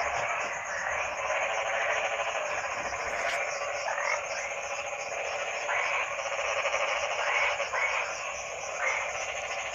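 A dense chorus of many frogs calling at once, a continuous pulsing croak. Separate louder calls stand out over it about once a second.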